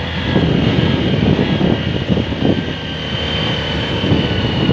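Motorcycle engine running steadily while riding, with rumbling wind and road noise over it.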